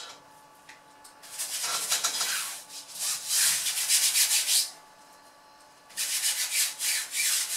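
Paint being rubbed onto a large stretched canvas, laying down the ground colour: scratchy scrubbing strokes in three spells, the first starting about a second in, with short pauses between.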